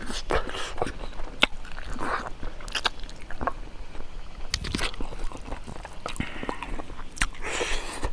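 Close-miked chewing of a mouthful of spicy pig leg meat and rice, with irregular mouth clicks and smacks.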